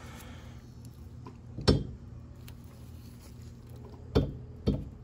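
Three sharp knocks as a leaf spring shackle is forced into its stiff bushings: one loud knock a little under two seconds in, then two close together near the end. A low steady hum runs underneath.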